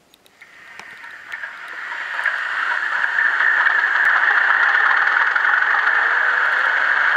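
Recorded Class 31 diesel locomotive engine sound played by an N gauge model's Zimo MX648 DCC sound decoder through a miniature speaker. It starts about half a second in and builds over the next few seconds to a steady running engine sound.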